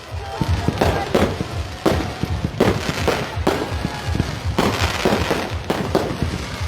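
Aerial fireworks going off: a steady run of bangs and crackling pops, several a second at irregular intervals.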